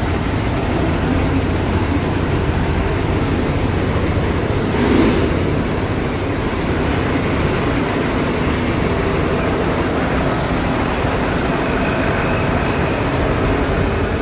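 City street traffic: a steady rumble of passing cars and other vehicles, with one louder swell about five seconds in.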